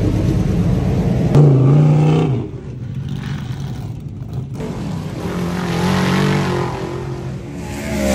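Dirt modified race car engine running on the track. Its note is loudest and steady for about a second starting a second and a half in, then rises and falls as the car laps.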